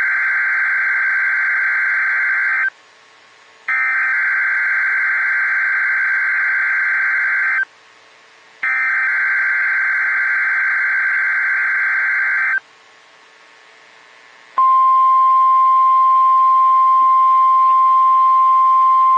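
NOAA Weather Radio emergency alert signal for a required weekly test: three buzzy digital SAME data header bursts, each about four seconds long with a second's gap between them. Then, near the end, the steady single-pitch 1050 Hz weather radio alarm tone comes on loudly.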